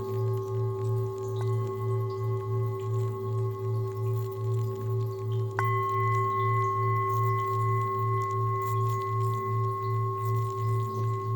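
Several singing bowls ringing in long sustained tones over a low hum that wavers about three times a second. About halfway through another bowl is struck, adding a brighter, higher ringing tone that holds.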